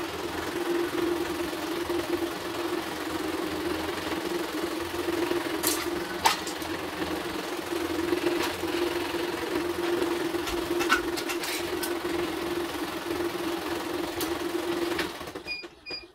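Embroidery machine running with a steady motor hum, stopping about a second before the end, followed by a few short electronic beeps. A few sharp clicks of tool work on metal come through the hum.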